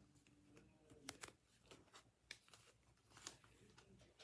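Faint rustles and a few light knocks as balls of milk cotton yarn in paper label bands are pushed into place on a plastic shelf, the clearest about a second in and near the two- and three-second marks.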